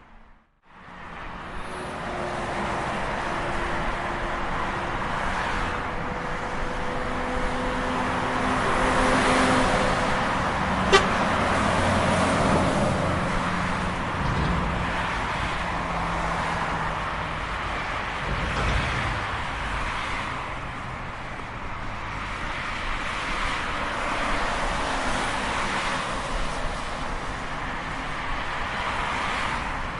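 Continuous highway traffic: cars and trucks passing at speed, their tyre and engine noise swelling and fading. The sound drops out briefly at the very start, and there is a single sharp click about eleven seconds in.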